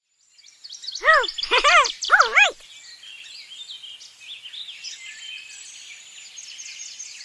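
Three short cries, each rising then falling in pitch, about a second in, over faint high bird chirping that carries on to the end.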